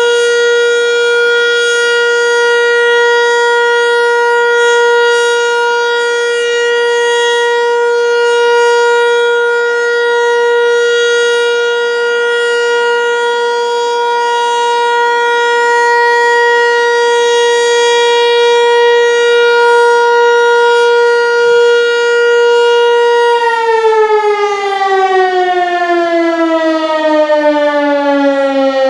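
American Signal Corporation T-121 outdoor warning siren sounding a steady, unwavering tone (the Alert signal), then winding down about 23 seconds in, its pitch falling steadily as the rotor slows.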